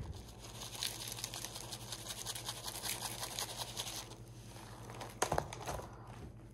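Hands pressing and rubbing a walleye fillet in dry breading mix on a paper plate: a steady scratchy rustle of crumbs that eases off about four seconds in, with a couple of sharp taps a little after five seconds.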